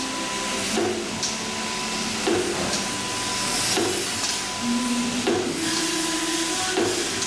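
CNC roller machine running: motor whine that steps to a new pitch every second or so over a steady higher tone, with short bursts of hiss.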